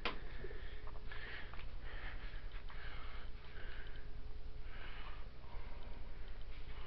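A run of short, noisy sniffs close to the microphone, with a sharp knock right at the start.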